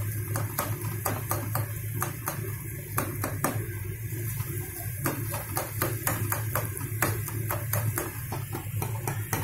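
Metal spoon knocking and scraping against a steel kadhai as a thick tomato-onion masala is mashed and stirred, with irregular clicks a few times a second over a steady low hum.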